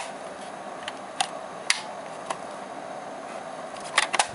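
Light clicks and taps of fingers handling the plastic casing of an external DVD drive, a few scattered ones and a short cluster near the end, over a steady background hiss.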